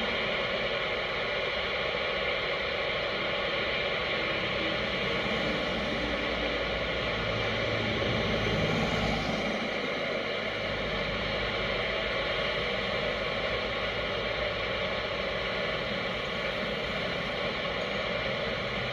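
Steady hiss over a low engine and road hum inside a vehicle crawling through slow highway traffic.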